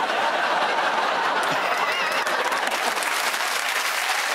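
Studio audience applauding and laughing, a steady wash of clapping that holds at one level.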